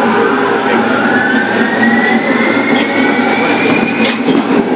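Kawasaki R-143 subway train's Bombardier MITRAC traction motors whining over the running noise of the cars, the whine rising steadily in pitch as the train gathers speed. About four seconds in the whine stops with a sharp click.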